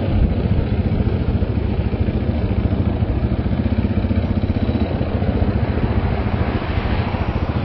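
KTM motorcycle engine running steadily, with an even, rapid pulse from its firing.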